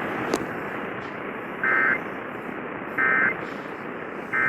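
Emergency Alert System end-of-message signal: three short bursts of warbling SAME data tones, about 1.3 s apart, over steady radio static hiss. It marks the end of the severe thunderstorm warning broadcast.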